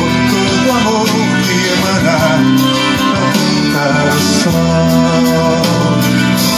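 Music accompanying a dance: a song with a steady beat, in a stretch between its sung Portuguese verses.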